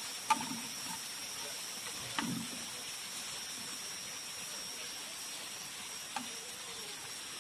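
Crickets frying in a pan with a steady sizzling hiss as the sour bamboo-shoot liquid cooks off. Wooden chopsticks click against the pan three times while stirring.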